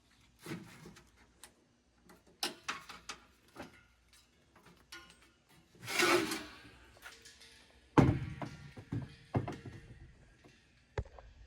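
Irregular knocks, clicks and clatter of hands working with tools and parts. There is a short noisy rush about six seconds in, and the loudest knock comes about two seconds after it.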